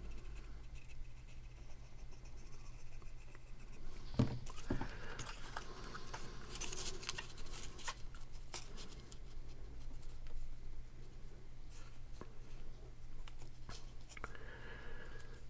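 Sheets of cardstock being handled, folded and pressed down: paper rustling with light taps and crinkles, including a sharper knock about four seconds in, over a low steady hum.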